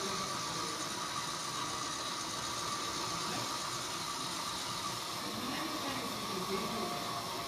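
A 00 gauge model train running on the layout track, a steady hiss with a constant whine.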